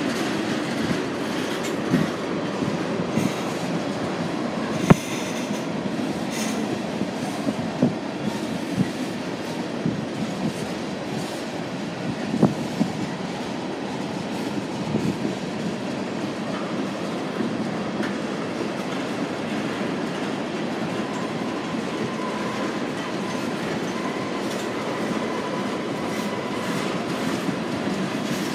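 Freight train cars rolling past, wheels clattering over the rail joints with scattered sharp knocks. A faint, thin, steady whine joins about three-quarters of the way through.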